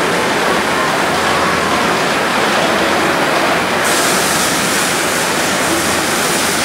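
Steady loud rushing noise from a live-steam model railway running track, with a sharper hiss joining about four seconds in and a small train rolling past near the end.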